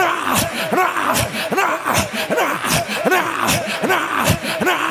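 A man's voice praying in tongues: rapid, wordless syllables with sharp swoops in pitch, a few each second.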